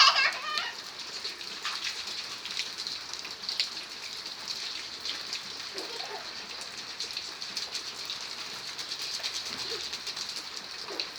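Steady rain falling and pattering on surfaces, with many small drop ticks.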